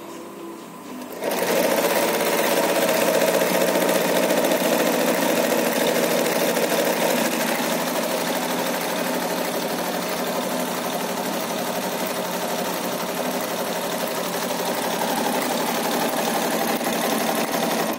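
Industrial single-needle sewing machine stitching a strip of fabric at a steady high speed, starting abruptly about a second in and running evenly without pause.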